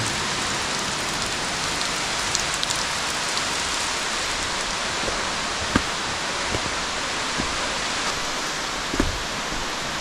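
Steady rain-like hiss of falling and splashing water in a cave, with a couple of soft knocks about six and nine seconds in.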